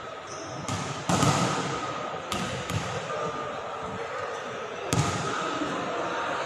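Volleyball bouncing on the hard floor of an indoor sports hall: a handful of sharp thuds, the loudest about a second in, each ringing on in the hall's echo.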